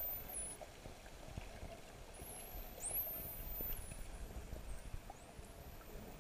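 Dolphins whistling underwater: several high whistles that rise in pitch and then level off, the loudest about three seconds in, over a low steady water rush.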